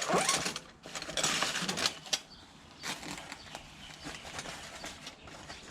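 Handling a fabric tool pouch holding metal spanners: cloth rustling with light metallic clinks, busiest in the first two seconds, then quieter scattered clicks.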